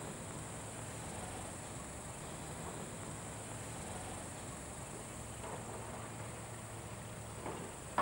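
Insects chirring in a steady, high-pitched chorus over a faint low rumble.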